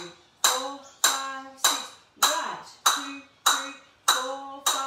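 A pair of flamenco castanets played in single strokes (golpes) at a slow, even beat, a little under two sharp, ringing clicks a second.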